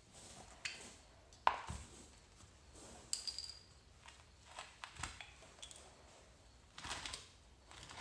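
Wooden sand-casting flask full of greensand being handled and turned over on a concrete floor: a series of knocks and scrapes, the sharpest knock about one and a half seconds in.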